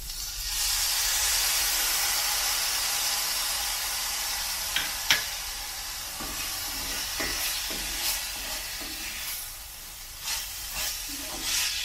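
Soy sauce poured into a hot cast-iron skillet of sautéing green-plantain peel strips, setting off a burst of sizzling about half a second in that slowly dies down. From about halfway through, a wooden spoon stirs and scrapes the pan, with a few sharp clicks and knocks.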